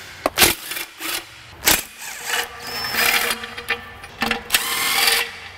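Sharp metal knocks, then a power tool running in two bursts of about a second each, during work on a steel bell housing.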